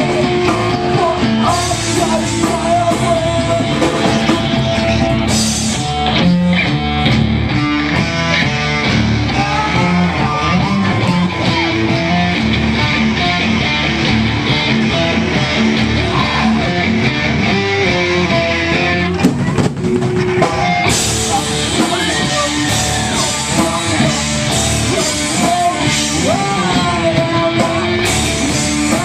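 A live rock band playing a song, with electric guitar over a drum kit and bass.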